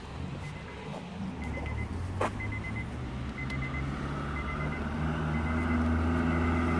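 A motor vehicle's engine running close by and growing louder, with a faint short beep repeating about once a second and a single sharp click a little over two seconds in.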